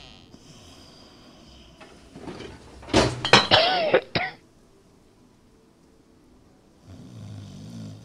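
A sleeper snoring: a hissing breath out near the start and a low rasping snore near the end. About three seconds in comes the loudest sound, a sudden clatter of sharp knocks with a short wavering squeaky tone, lasting about a second and a half.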